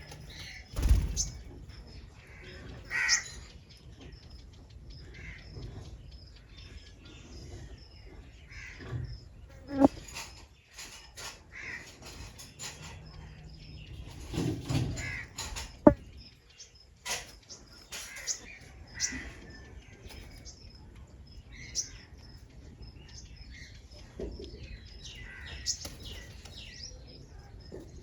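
Backyard birds calling: house crows cawing now and then among the chirps of smaller birds, with a few sharp knocks.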